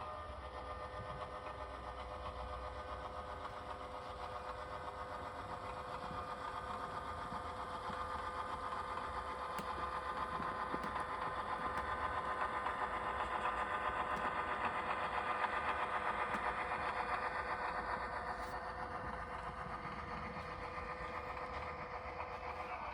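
HO scale model GP9 diesel locomotive running along the track, a steady engine sound with a mechanical hum that grows louder around the middle and eases off toward the end.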